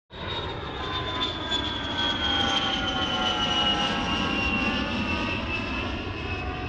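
Airplane flying past: a steady engine rush with a high whine that slowly falls in pitch.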